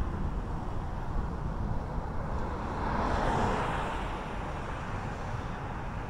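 Road traffic on a highway bridge: a vehicle passes about halfway through, its tyre and engine noise swelling and fading over a steady low rumble.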